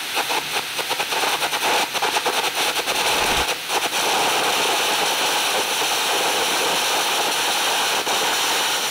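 Air carbon arc gouging at 300 amps: a copper-coated carbon electrode arcing against steel plate while a jet of compressed air blows the molten metal out of the gouge. Irregular crackling and popping for the first few seconds, then a steady, loud, even rush of arc and air from about four seconds in.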